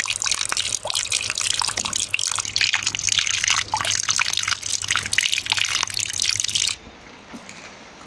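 Rainwater pouring in a stream from the end of a downspout and splashing onto sandy ground and into a puddle, a dense crackling splash. About seven seconds in it cuts off suddenly, leaving quieter steady rain.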